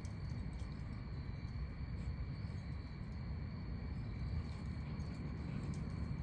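Night insects trilling steadily in a high, even drone, over a low steady background rumble.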